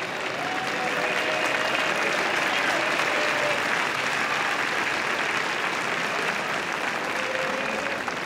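Spectators at a baseball game applauding and cheering for a batter's double, the applause swelling about a second in and holding steady, with a few voices calling out among it.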